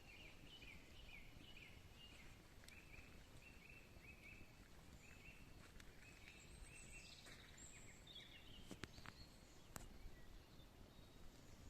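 Faint forest birdsong: a bird repeats short notes in quick runs, about three a second, while other birds call higher. It sits over a low, steady natural background, with a couple of faint clicks near the end.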